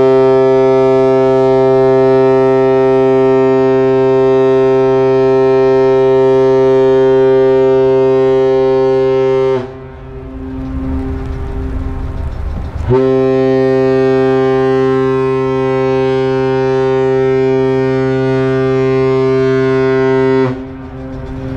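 Ship's whistle of the Japan Maritime Self-Defense Force training support ship Kurobe sounding a long blast on leaving port. The blast is one loud, steady tone of unchanging pitch that stops abruptly after about ten seconds. A second long blast starts about three seconds later and runs for roughly seven and a half seconds.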